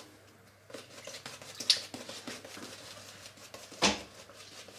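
Badger-hair shaving brush working shaving soap lather on the face: a run of soft, quick swishing strokes, with a sharp click about a second and a half in and a louder thump near the end.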